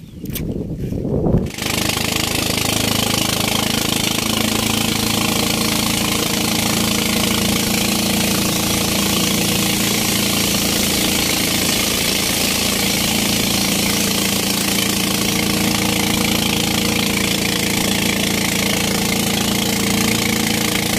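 A small motorboat's engine running steadily at cruising speed, with the hiss of rushing water and air over it, from about a second and a half in.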